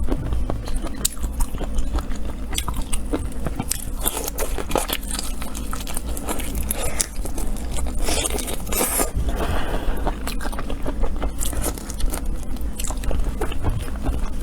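Close-up eating sounds: irregular crunching, biting and chewing, with scraping.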